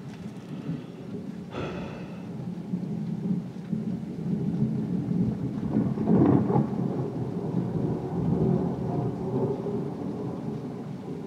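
Heavy rain with rolling thunder. The low rumble swells about four seconds in, peaks around six seconds and slowly dies away.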